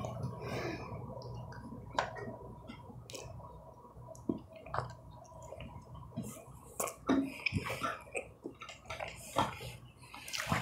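A spoon taking a bite of macaroni and cheese, then a person chewing it, with scattered soft clicks and wet mouth noises at irregular times over a low steady room hum.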